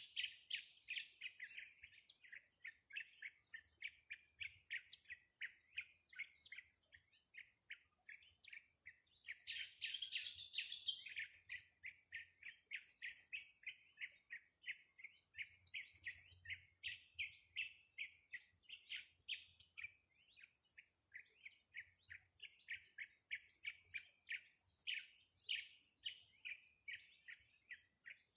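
Birds chirping: a continuous run of short, quick chirps, several a second, with some higher, longer notes mixed in.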